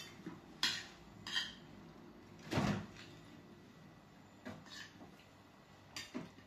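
Fork and spoon clinking and scraping against a plate as food is cut and picked up: a handful of short, separate clinks, the loudest about two and a half seconds in.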